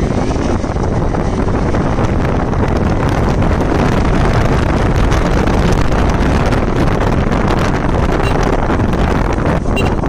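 Heavy wind rushing over the microphone on a moving motorcycle, a Bajaj Pulsar RS200, with its engine buried under the steady rush of air.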